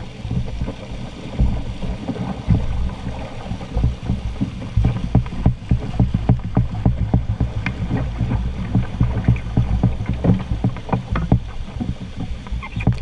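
Loud rushing whitewater of a river rapid around a canoe, a steady deep roar heard close up, with frequent sharp splashes and knocks.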